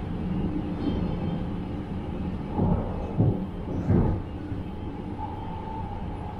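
Regional train running along the track, a steady low rumble, with three heavy thumps from the wheels on the track about two to four seconds in.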